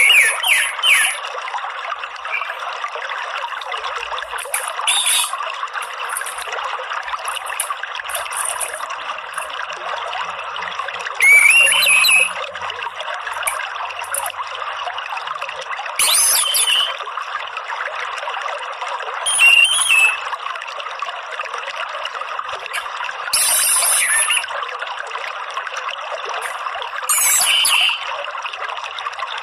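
Orange-headed thrush song, in short high-pitched phrases every few seconds, over a steady trickling stream of water.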